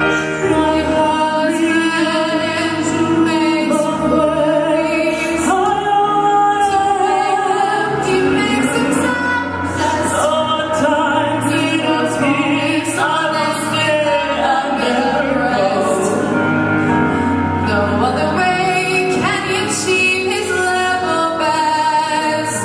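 A show-tune ballad performed live: female voices singing long, wavering notes with vibrato over a band of piano, keyboards, guitar and drums.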